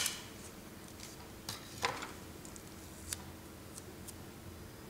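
A strip of drafting tape torn off against the serrated cutter of a tape dispenser in one sharp snap at the start, followed by a few faint small ticks from handling the tape and wire.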